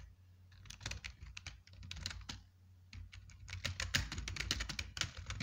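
Computer keyboard keys being typed in quick, irregular runs of clicks, with a short pause about halfway through.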